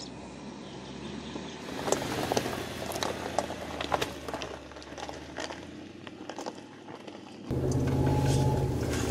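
Mercedes-Benz G-Class crawling over loose rocks: a low engine hum, with gravel and stones crunching and clicking under the tyres. About seven and a half seconds in, the sound switches to inside the cabin, where the engine is louder and steady.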